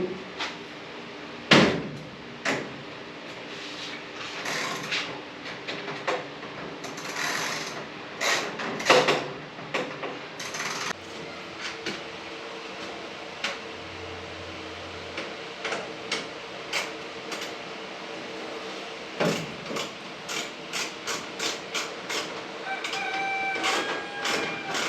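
Metal garage-door hardware being handled and fitted by hand: irregular clicks, knocks and short scrapes, then a run of quick clicks about twenty seconds in. A brief pitched tone sounds near the end.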